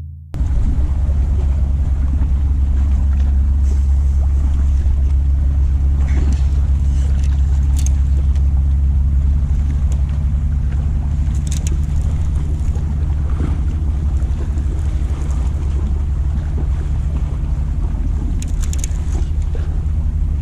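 A boat's engine running at a steady speed, a deep even drone heard from aboard, with a few faint clicks over it.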